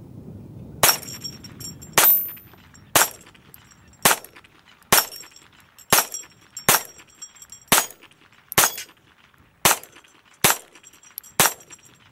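Smith & Wesson M&P 22 pistol (.22 LR) firing twelve shots in slow, steady succession, about one a second. Many shots are followed by a short high ringing.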